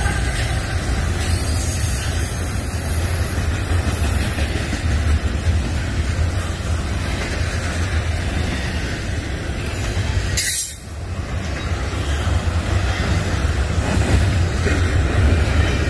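A freight train rolling past at close range: a continuous loud rumble of wheels on rail. About ten and a half seconds in there is a brief sudden dip in loudness, then the rumble resumes.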